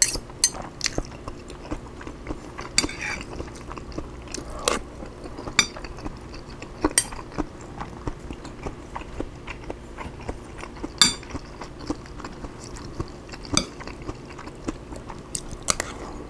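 Close-up chewing and mouth sounds of someone eating broccoli fried rice, with sharp clicks of cutlery against the dish scattered throughout, a few of them louder.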